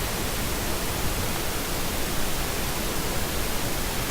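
Steady, even hiss with no other sound standing out.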